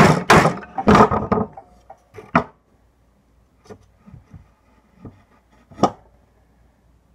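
A hammer striking wood in quick, even blows, about three a second, which stop about a second in. A few scattered, lighter wooden knocks follow, the last and loudest near the end.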